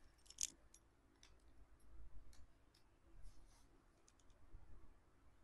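Faint, scattered clicks of bangles being handled, knocking lightly against one another.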